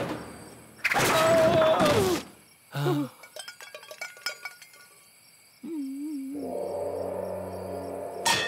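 Cartoon slapstick crash: a loud crashing with a held yell as a character falls through the floor, followed by scattered small clatters and knocks of falling debris. Near the end comes a short wavering hoot, then soft music.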